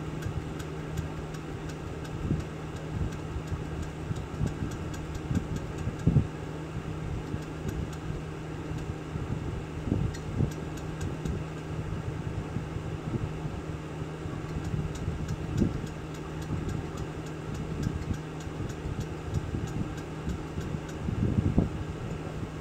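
Loose wastegate flapper of the Audi 2.0 turbocharger's K03 turbo knocking in its bushing as the actuating arm is shaken by hand: a few irregular clunks over a steady low hum. The play is the sign of a worn, loose wastegate, the cause of the underboost fault that means the turbo must be replaced.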